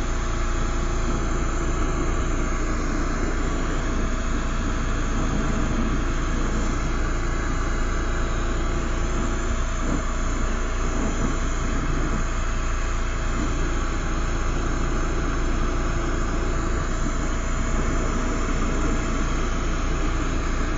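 Lampworking bench torch burning steadily, its flame giving a constant even rush as it heats a glass gather.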